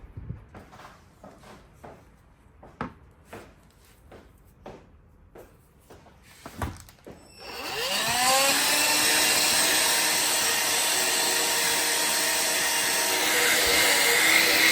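A few scattered light clicks and knocks, then an electric sander starts about halfway through, its motor whine rising as it spins up, and runs steadily with a loud hiss of sanding on the wooden decking.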